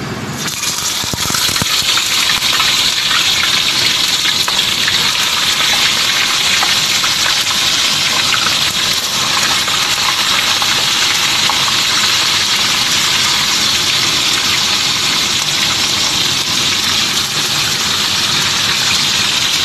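Whole round scad (galunggong) frying in hot oil in a wok: a loud, steady sizzle that swells over the first second or two as the fish go in, then holds.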